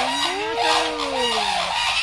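Birds calling: a steady run of short, repeated honking calls, with a longer call that glides up and then falls away during the first second and a half.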